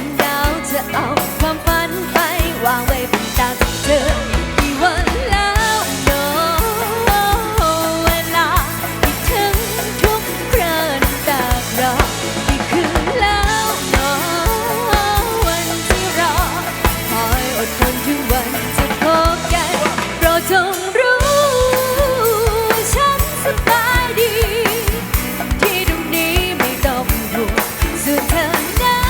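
Live band playing a pop song, with a drum kit keeping a steady beat under a wavering melodic lead line.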